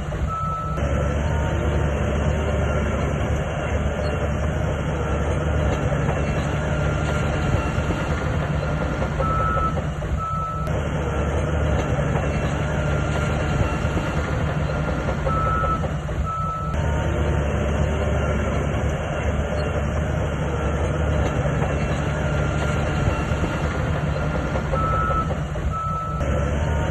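Shantui bulldozer working: diesel engine running under load with the steel tracks clattering, and a high beeping alarm sounding at times.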